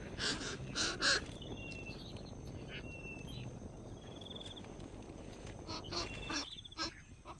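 Birds calling: a few short harsh squawks in the first second and again near the end, with brief high trilled notes in between.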